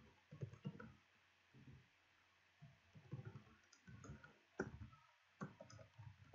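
Faint typing on a computer keyboard: irregular runs of short key clicks with brief pauses, and a couple of sharper keystrokes about four and a half and five and a half seconds in.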